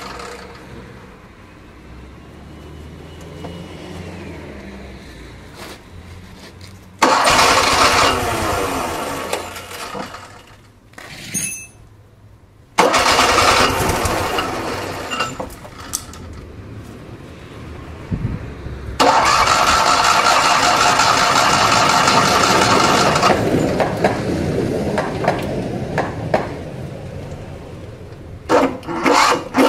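Fiat 126p's air-cooled two-cylinder engine being cranked over and trying to start after about 30 years standing, catching and sputtering without settling into a run. It goes in three long loud spells of a few seconds each, with quieter stretches between and short bursts near the end.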